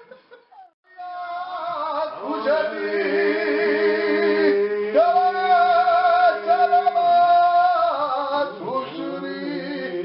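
Traditional Georgian part-singing: several voices over a held low drone, the upper voice sustaining long notes with vibrato. It begins about a second in after a brief hush and swells around the middle.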